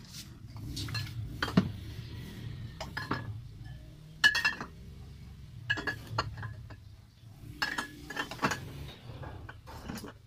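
Glass soft-drink bottles clinking against one another as they are shifted and rearranged in a crate: about a dozen sharp, ringing clinks at uneven intervals, over a steady low hum.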